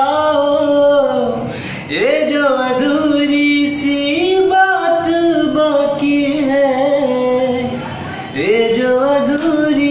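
A man singing a Hindi song solo with no accompaniment, holding long, wavering notes and sliding up into new phrases twice.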